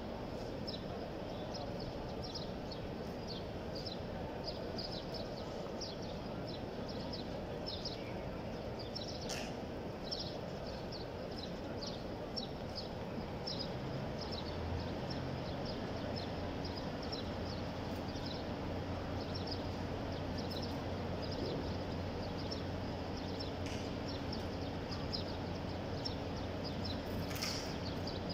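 Steady murmur of a large crowd, with small birds chirping in quick, repeated short notes above it. A low steady hum comes in about halfway through.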